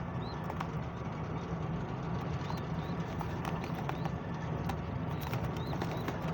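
Pigeon loft ambience: scattered light taps and clicks with short high bird chirps every second or so, over a steady low hum.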